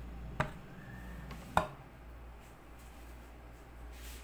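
Two sharp light knocks of kitchenware about a second apart, as the egg-wash bowl and pastry brush are handled over a metal baking tray of dough, over a low steady hum.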